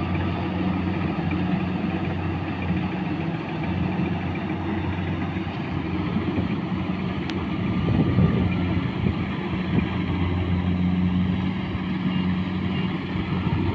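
Kubota combine harvester's diesel engine running steadily with a low drone as the machine drives across the field.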